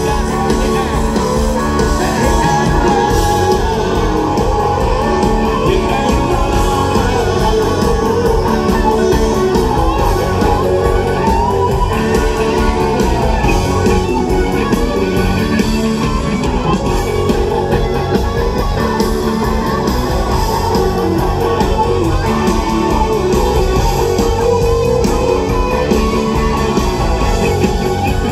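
Live rock band playing an instrumental break of the song, electric guitars over drums and bass, loud and steady through a stadium PA as heard from the crowd.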